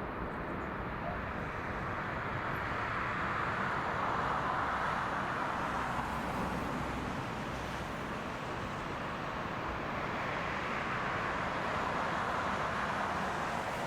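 Jet airliner engines heard at a distance: a steady rushing noise that swells twice.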